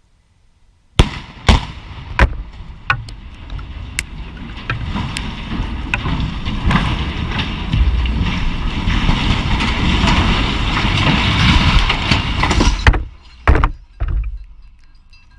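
Explosive cutting charges going off on a 300-foot structural steel water tower: three sharp, very loud blasts about a second in, followed by scattered cracks. A long noise of the falling steel structure builds steadily and cuts off abruptly, then two more sharp bangs come near the end as the tower comes down.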